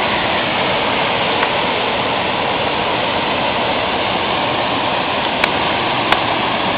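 Steady rushing of water from the Mirusha waterfalls, an even unbroken noise, with two faint clicks near the end.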